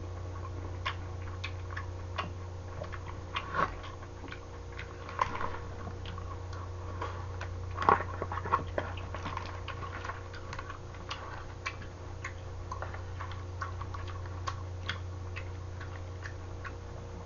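Eating sounds: disposable wooden chopsticks tapping and scraping in a plastic takeout tray, with chewing. The taps and clicks come irregularly, a few a second, over a steady low hum.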